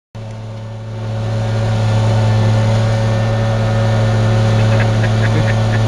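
Heavy diesel engines of an asphalt paver and a dump truck running with a steady low hum, rising in level over the first two seconds and then holding steady.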